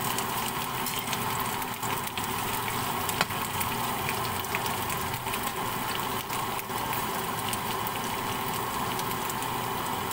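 Sliced carrots, potatoes and red bell pepper frying in oil in a wok, a steady sizzle with scattered small clicks, after a spatula stirs them at the start.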